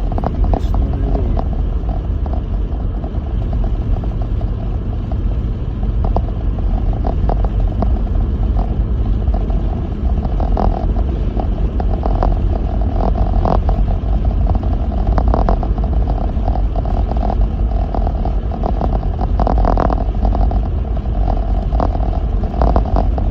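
Lexus GX470 driving on a snow-covered road, heard inside the cabin: a loud, steady low rumble of tyres and engine with frequent irregular knocks and rattles as the truck goes over bumps.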